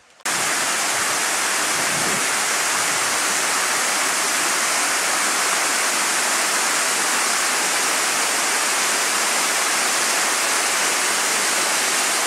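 Small river rushing and splashing over rocks and through grass in a shallow cascade: a steady noise of fast water that cuts in suddenly just after the start.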